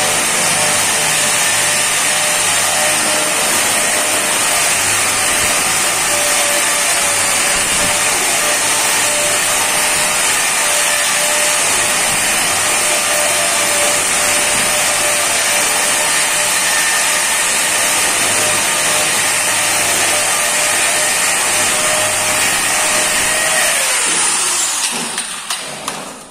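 Handheld electric angle grinder running steadily against the edge of a granite slab, with a high, even whine. Near the end it is switched off and its whine falls away as it spins down.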